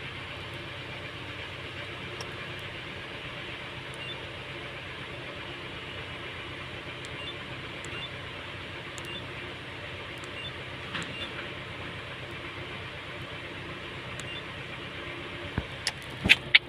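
A steady low hum with a few faint ticks, then several sharp knocks near the end.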